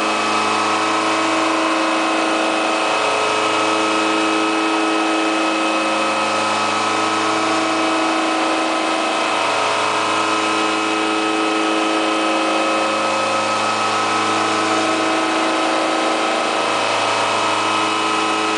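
Milling machine running steadily: a constant mechanical whine made of several steady tones over an even hiss, with no change in speed.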